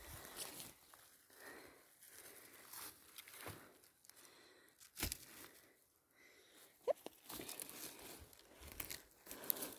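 Faint rustling and crackling of forest-floor undergrowth as chanterelles are picked by hand, with one sharp snap about five seconds in.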